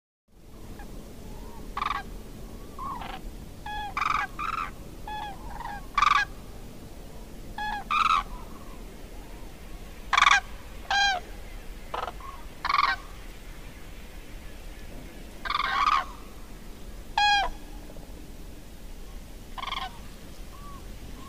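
Common cranes calling: loud, ringing calls repeated at irregular intervals, often a second or two apart, some in quick pairs. Several birds at different distances call, some loud and some faint, over a low steady background rumble.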